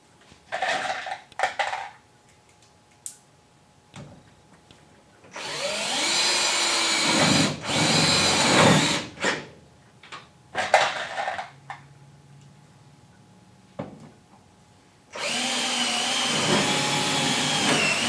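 Cordless drill driving screws into a steel truck-bed cross member: a few short bursts of the motor, then longer runs of two to three seconds that spin up and hold.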